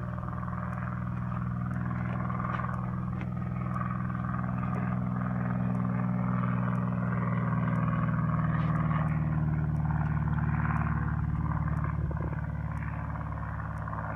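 Piston engine running steadily with a low, multi-toned drone that slowly grows louder, peaks about halfway through, and then eases off.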